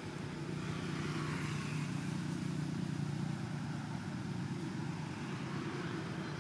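Low engine hum of a motor vehicle, swelling about a second in and easing off near the end.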